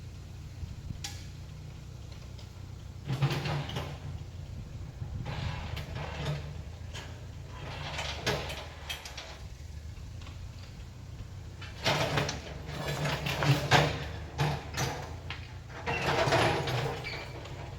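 Tractor engine running steadily, with several bursts of clanking and knocking over it.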